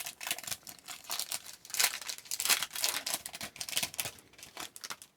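Hockey card pack wrapper being torn open and crinkled by hand, an irregular run of crackling and rustling that stops just before the end.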